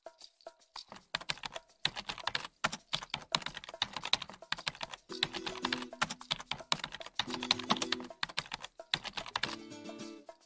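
Keyboard typing sound effect, rapid clicking keystrokes, over background music whose chords come in about halfway through and again near the end.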